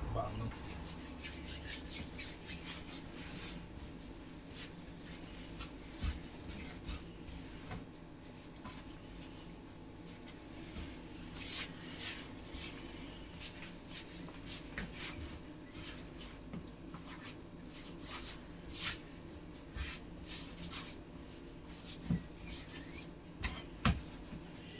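Hands kneading pizza dough on a worktop: soft, irregular rubbing and pressing with occasional light taps.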